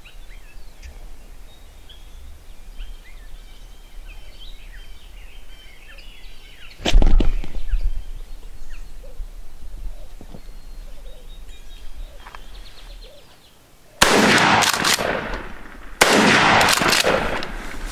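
Three loud shotgun blasts, about seven, fourteen and sixteen seconds in, each dying away over a second or two, the shot load hitting a wild turkey gobbler at close range. Faint songbird chirps before the first blast.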